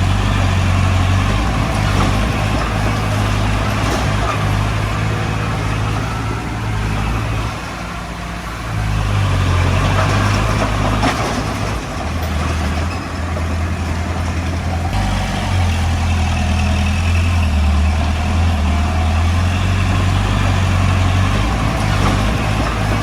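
Heavy diesel engine of earthmoving machinery running with a steady low drone, its level dropping briefly about eight seconds in and picking up again, with a sharp knock about eleven seconds in.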